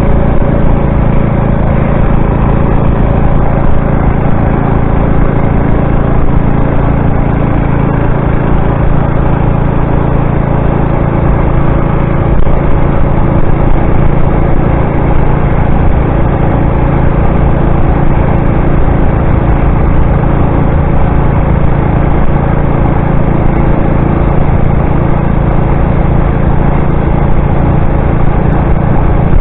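Small petrol engine of a motorized bicycle running loud and steady at a constant cruising speed while the bike is ridden.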